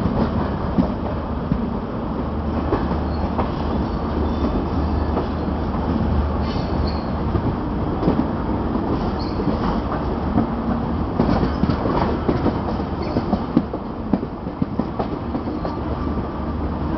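Running noise of a double-decker AC express train, heard from on board as it rolls through the station yard: a steady low rumble with irregular sharp clicks of the wheels over rail joints and points, and a faint brief squeal now and then.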